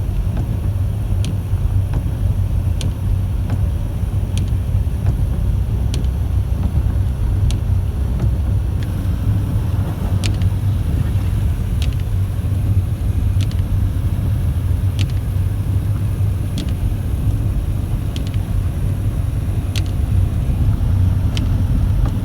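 Steady low rumble of a car on the move, with a faint, regular click about every one and a half seconds.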